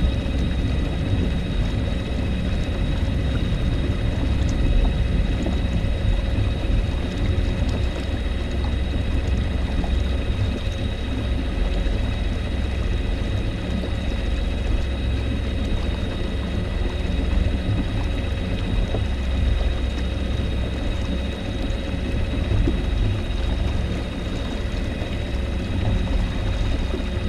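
Kayaks under way across choppy lake water: a steady low rumble of wind and water noise, with a faint steady high whine running through it.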